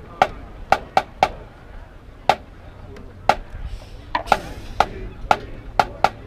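About a dozen sharp, irregularly spaced clicks and taps of marching drum mallets, hard and short with little boom to them.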